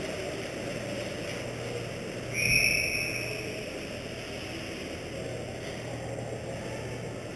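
A single high whistle blast, about three-quarters of a second long, about two and a half seconds in: a hockey referee's whistle. It rises over the steady hum and murmur of an indoor ice rink.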